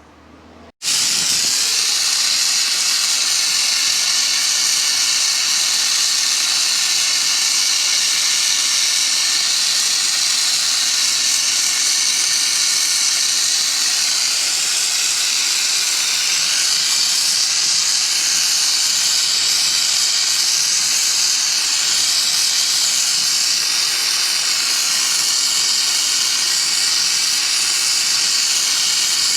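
Handheld gas torch burning with a steady, loud hiss that starts abruptly about a second in. It is heating the cylinder around a broken head stud to soften the hard factory thread-locker so the stud can be turned out.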